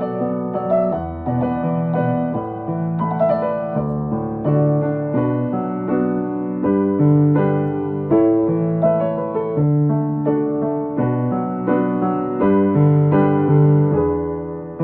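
Piano-toned keyboard music: a melody played over sustained chords and a moving bass line.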